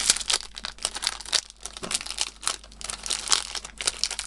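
Clear plastic wrapping crinkling and crackling in irregular bursts as it is picked and pulled off a new speed cube.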